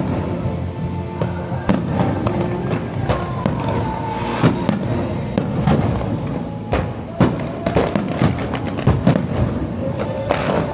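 Aerial fireworks shells bursting in quick, uneven succession over music; the bangs come thickest in the second half.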